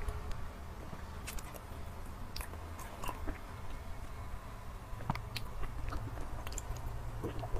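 Close-miked eating sounds of chocolate mousse cake: scattered soft, wet mouth clicks and smacks of chewing, over a steady low hum.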